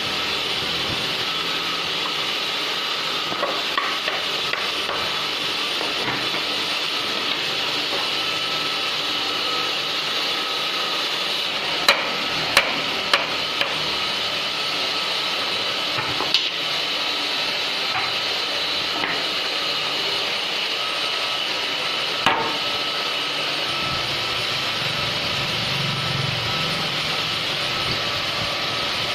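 A woodworking machine running steadily with an even whirring hiss. Over it come a few sharp knocks, three in quick succession about twelve seconds in and single ones later.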